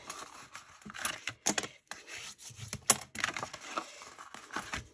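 A bone folder being drawn along the scored fold lines of a sheet of craft paper to crease them, giving short scraping strokes of the tool on the paper mixed with irregular taps and paper rustle.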